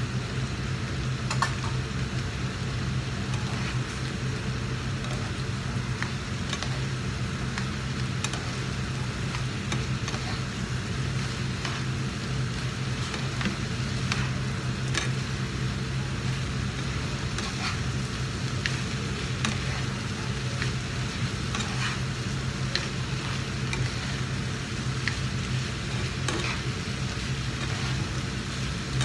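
Fried rice and vegetables sizzling in a frying pan while being stirred and tossed, with frequent short clicks and scrapes of the utensils against the pan, over a steady low hum.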